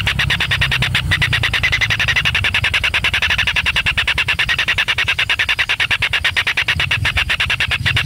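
A steady, rapid pulsing animal call at about ten pulses a second, with a low rumble underneath.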